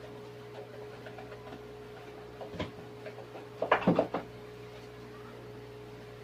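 Light knocks and clicks of a fishing rod and reel being handled, one about two and a half seconds in and a quick cluster near four seconds, over a steady hum.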